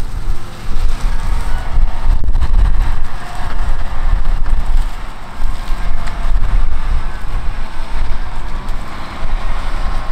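Heavy farm harvest machinery running steadily, with wind buffeting the microphone in uneven low gusts.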